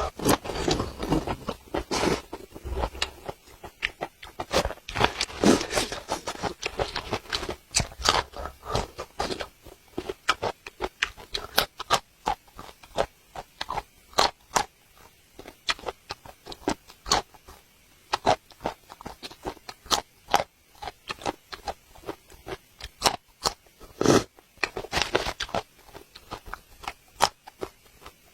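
A person biting and chewing spicy food, with a dense run of crunchy, wet mouth clicks and smacks.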